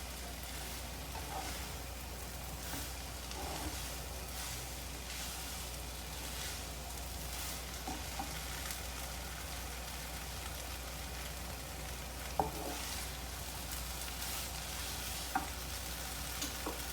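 Fried noodles sizzling steadily in a hot pan as they are stirred, with a few sharp clicks of the utensil against the pan.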